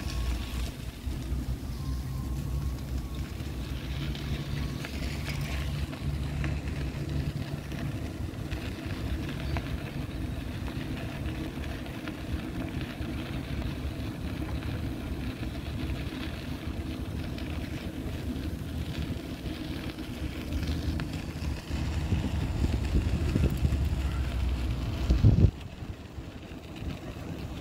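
Outdoor city ambience dominated by a steady low engine rumble. Near the end a single loud knock is heard, after which the rumble suddenly drops away to a quieter background.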